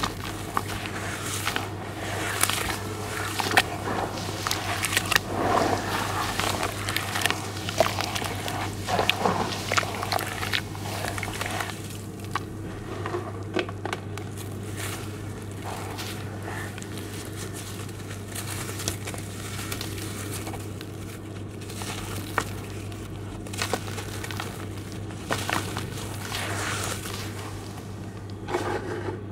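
Damp charcoal-and-sand clumps crumbled by hand into a plastic tub of water and black slurry: crackling crumbles and wet plops, busiest in the first half and again near the end, over a steady low hum.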